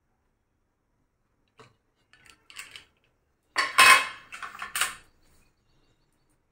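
Stainless pressure cooker lid being opened and lifted off: a few light metal clicks and scrapes, then a louder burst of metal clattering around the middle.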